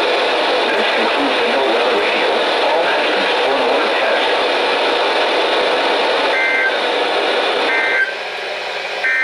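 Radio reception full of static, then three short two-tone EAS data bursts ("burps") about a second and a half apart near the end: the SAME end-of-message code that closes an Emergency Alert System test.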